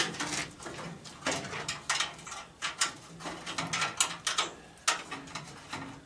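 Irregular metallic clicks, taps and scrapes of hand tools working on a furnace's sheet-metal housing and fasteners.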